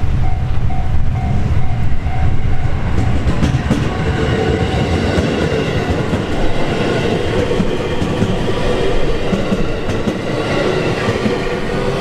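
A JR Hanwa Line electric commuter train runs past close by, its wheels rumbling and clacking over the rails, with a steady motor whine. For the first second or so a level-crossing warning bell repeats its chime about twice a second before the train drowns it out.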